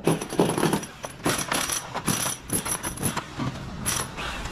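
Thin white plastic roof tiles being handled and fitted over one another on the battens: a run of irregular clattering knocks and scrapes, several a second.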